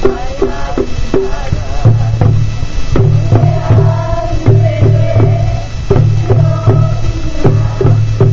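Live hula drumming: hand drums played in a steady, repeating rhythm with deep low tones, and a voice chanting over the drums.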